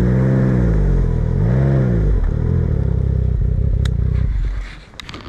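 Snowmobile engine running under way, its revs swinging up and down twice in the first two seconds, then holding a rougher steady drone before the throttle comes off and the sound drops sharply about four and a half seconds in. A few light clicks near the end.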